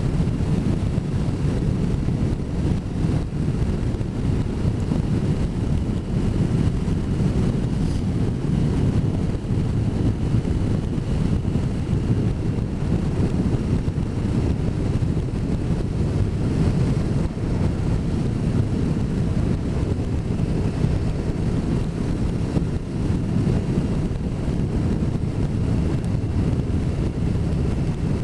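Wind rushing over the microphone with the drone of a motorcycle underway, a steady low rumble without change.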